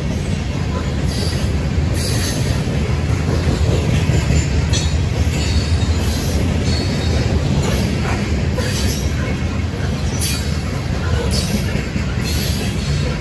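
CSX covered hopper cars rolling past on the rails: a steady low rumble of wheels on track, with brief high-pitched metallic squeals recurring every second or two.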